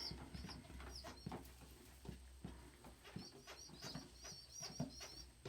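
Faint sounds of pigeons moving about a loft: scattered light taps and a run of soft, high chirps about three seconds in.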